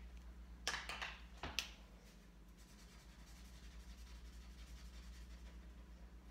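Felt-tip markers being handled, with a few short clicks and scrapes a little under a second in and again about a second and a half in. Then a marker tip faintly scratches across paper as leaves are coloured in, over a steady low hum.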